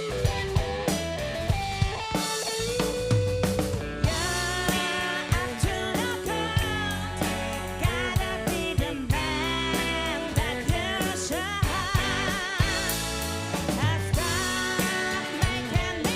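Live funk and soul band playing, with a steady drum kit beat and melodic lines that waver in pitch over it.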